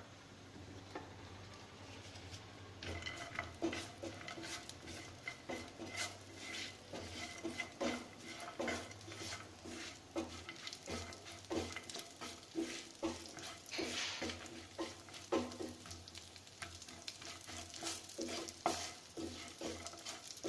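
Chopped cashews and almonds being stirred with a wooden spatula in a nonstick frying pan while they roast in a little ghee. There are repeated irregular scraping strokes over a light frying sizzle, starting about three seconds in.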